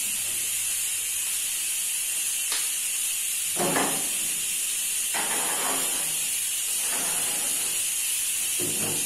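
Metal oven door of a gas stove opened, a metal baking tray slid in and the door shut: a few short clanks and scrapes, the loudest about three and a half seconds in and another near the end. A steady hiss runs underneath.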